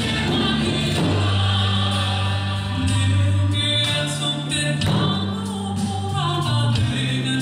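Choral music: voices singing held notes over a sustained low bass line, with a few sharp drum strikes.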